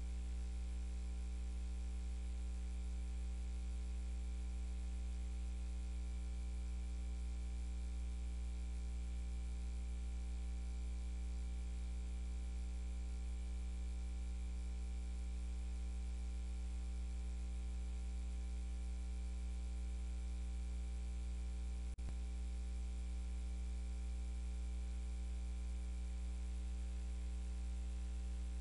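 Steady electrical mains hum with buzz and hiss, unchanging throughout. One faint click comes about three quarters of the way through.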